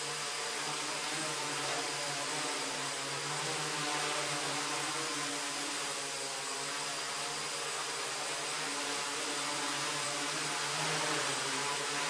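A tricopter's three Hobby King DT750 brushless motors and propellers running steadily as it hovers, a buzzing hum over a wide rush of propeller noise, wavering slightly in pitch.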